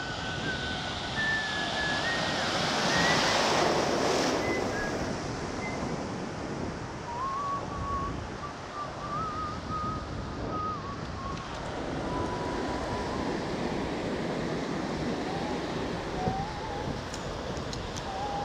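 Ocean surf washing onto the beach, with wind buffeting the microphone; a wave breaks loudest about three to four seconds in. A faint, thin whistling tone wanders in pitch through much of it.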